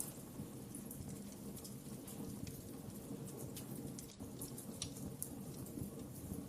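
Wood fire crackling in a fireplace: irregular small snaps and pops over a low, steady rumble.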